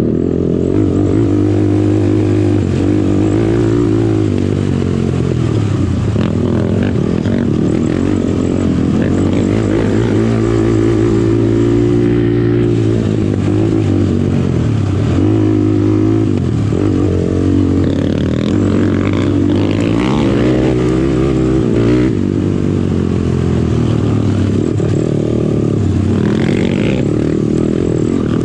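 Sport quad's engine being ridden hard on a trail, its pitch rising and falling again and again as the throttle is worked.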